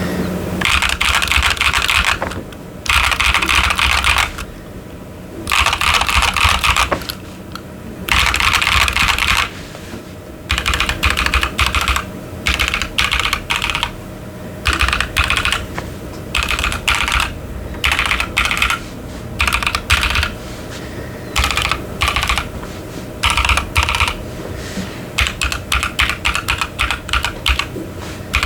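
Typing on a Keychron Q10 mechanical keyboard with Ashkeebs Amethyst switches and doubleshot PBT keycaps: fast runs of key clacks in bursts of a second or two with short pauses, turning into shorter, choppier bursts in the second half.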